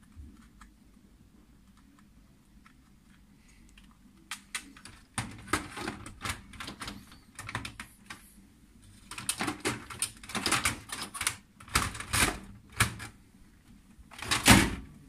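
Hard plastic clicking, scraping and knocking as a toner cartridge is handled and pushed back into an HP LaserJet M1522nf laser printer, in irregular clusters after a quiet start. Near the end, a loud thump as the printer's lid assembly is brought down shut.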